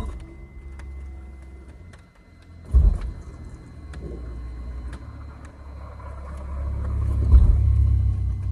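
Car's in-tank electric fuel pump running as it primes after being replaced, heard as a steady low hum that builds toward the end, with a sharp knock at the start and another about three seconds in.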